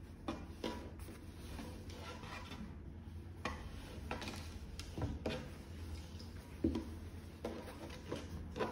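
Hands handling a pair of sweatpants on a wooden table: soft fabric rustling with scattered light knocks and taps against the tabletop, over a low steady hum.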